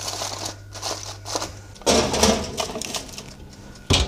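Aluminium foil crinkling as it is crimped down around the rim of a roasting pan, with a louder burst of handling noise about two seconds in.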